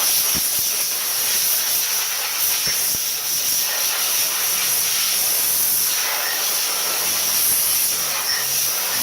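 Compressed-air blow gun hissing steadily as it blows dust off a fan, drawing down the tank of a California Air Tools 10020C air compressor that has not yet kicked on.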